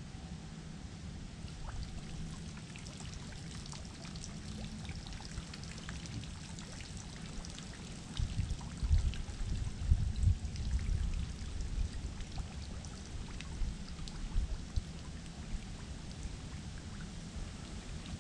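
Water trickling and dripping in flooded timber, with scattered small drips and splashes. A cluster of louder low bumps comes about halfway through and a few more follow.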